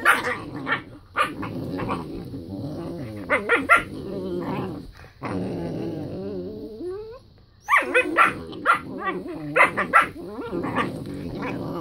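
Whippet puppies play-fighting, growling almost without a break, broken by sharp barks and yips. There is a short lull about seven seconds in, then a quick run of barks.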